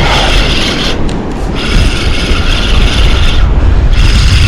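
Wind buffeting the microphone with a heavy rumble, over a hissing rush that drops away twice.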